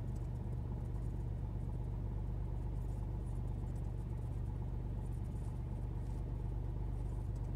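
Cessna T206H's turbocharged six-cylinder Lycoming engine running steadily while taxiing, heard inside the cockpit as an even, low hum.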